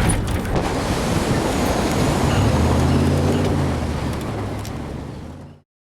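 Dodge diesel pickup truck driving off-road: the engine runs under load amid a heavy rush of wind and tyre noise, its low note swelling and shifting in pitch in the middle. The sound cuts off suddenly near the end.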